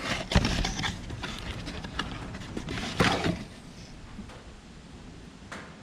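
Handling noises as boxed replacement filters are picked up and put down: irregular knocks, clicks and rustles, busiest just after the start and again around three seconds in, then quieter.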